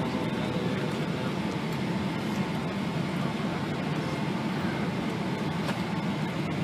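Steady low rumble of an airliner cabin on the ground just after landing, the engines and air system running, with a faint steady high tone over it.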